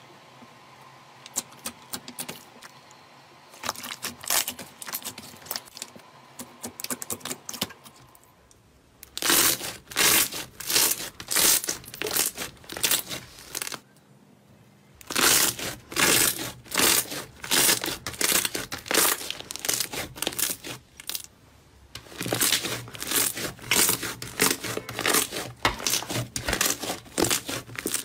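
Hands pressing, squishing and stretching slime, making runs of quick crackling and popping clicks. Faint at first, the crackling turns loud about a third of the way in and goes on in stretches of several seconds, with a brief lull near the middle.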